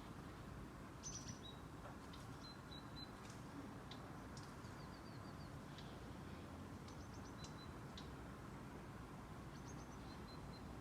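Faint small songbird chirping, with short high notes and quick runs of four or five notes repeating every second or two, over a steady low background rumble.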